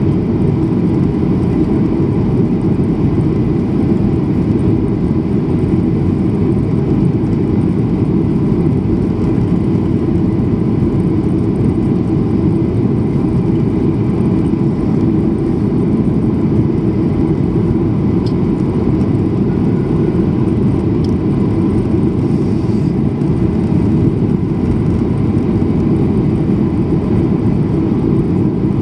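Airliner cabin noise heard at a window seat: the steady roar of the jet engines and the air rushing past the fuselage during the low descent towards landing, with a faint steady whine above it.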